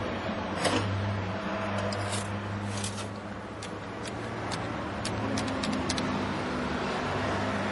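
Steady road-traffic noise with a low engine hum, and scattered light clicks over it.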